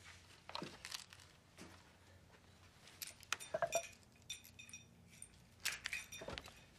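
Light glass-and-metal clinks and rattles as a bare light bulb is handled and screwed into its hanging socket. They are bunched about three seconds in and again near the end, after a few soft knocks.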